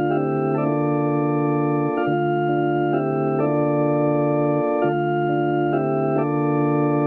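Electric organ music: sustained chords that change every half second to a second and a half over a held bass note, which breaks off briefly twice.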